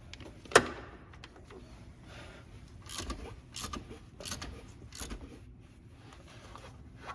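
Hand tools and metal parts being handled while working in the engine bay: a sharp click about half a second in, then a few scattered knocks and clatters.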